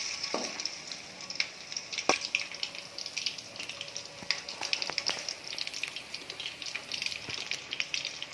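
Batter-coated chicken pieces deep-frying in hot oil: a steady sizzle full of quick sharp pops and crackles.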